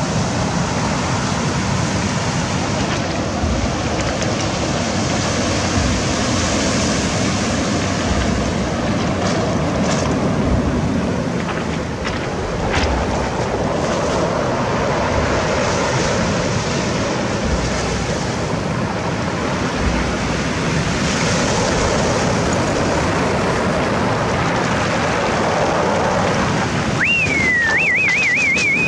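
Sea surf washing in steadily, with wind buffeting the microphone. Near the end a short high whistle dips and then warbles quickly.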